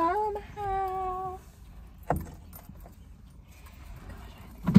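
A girl's voice singing one held note at the start, then rustling and a knock as people clamber over car seats, with a loud thump near the end.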